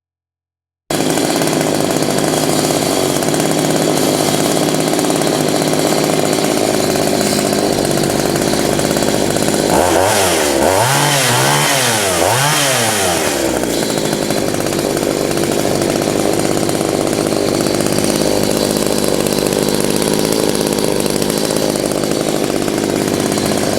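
Poulan Countervibe 3400 two-stroke chainsaw running steadily, revved up and back down three times in quick succession about halfway through, then shut off at the end.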